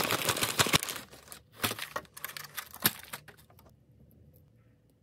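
Packaging crinkling and tearing. It is dense for about the first second, then breaks into scattered crackles and clicks that die away after about three seconds.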